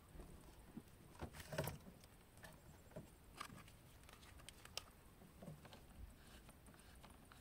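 Near silence with faint scattered clicks and light taps of hand work on parts in a car's engine bay, loudest in a short cluster about a second and a half in.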